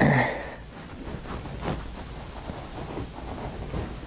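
Light clicks and scraping of small metal parts as the bottom valve stem of an HTHP filter press cell is turned tight by hand, sealing the cell. A brief loud noise comes right at the start.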